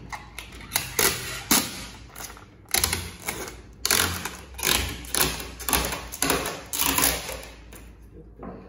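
Plastic window tint film being peeled apart from its backing liner by hand, in a series of short, sharp pulls about two a second that die away near the end.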